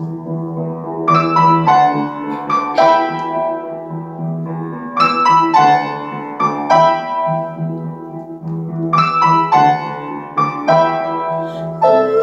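Piano played solo, a slow phrase of struck chords and single notes over a held low note, coming round again about every four seconds. The piano is out of tune.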